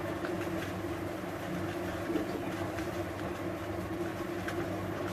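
A steady low mechanical hum, with a few faint soft taps and presses of fingers kneading a soft mawa mixture on a plastic plate.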